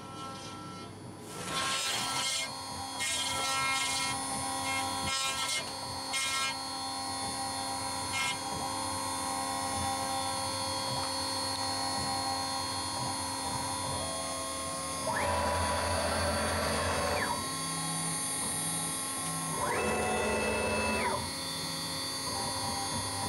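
CNC router spindle running at a steady whine while its small tapered bit carves a relief into a wooden board, with rough bursts of cutting noise in the first few seconds and two louder stretches of cutting later on.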